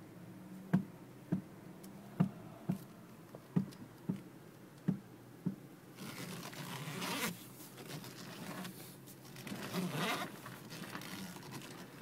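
Sharp knocks from the steering column of a 2003 Infiniti FX35 as the wheel is turned toward full left lock, about eight of them at roughly two a second, over a steady low hum. After about six seconds the knocks give way to a rushing hiss that swells twice. The knock is the fault the owner is asking about; its cause is not known.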